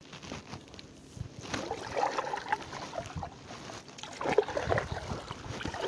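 Water lapping and trickling against a kayak's hull, with scattered small knocks on the boat.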